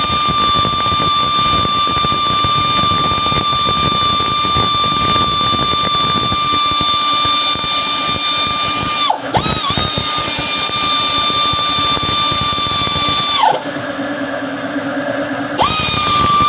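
High-speed handheld power tool running with a steady high whine; its pitch dips briefly about nine seconds in, then sags to about half for two seconds near the end before spinning back up, as the tool is loaded against the work.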